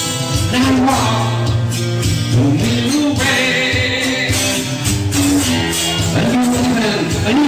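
Live rock music from a one-man band: amplified acoustic guitar over a full backing with a steady bass line, and a man singing.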